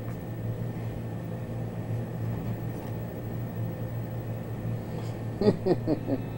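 Steady low hum with a faint hiss, with no clear event until a few brief, quick sounds about five and a half seconds in.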